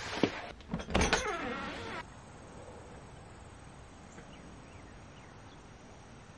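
A door being opened: clicks, then a scraping slide that falls in pitch, cut off sharply about two seconds in. After that comes quiet outdoor air with a few faint chirps.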